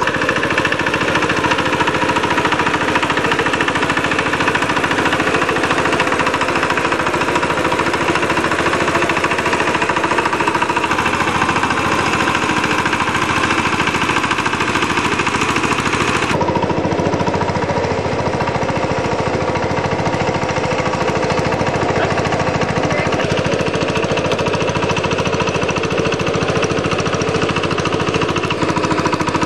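Power tiller engine running steadily with a rapid, even chug as the machine works a flooded paddy field. The sound shifts abruptly a little past halfway, then carries on much the same.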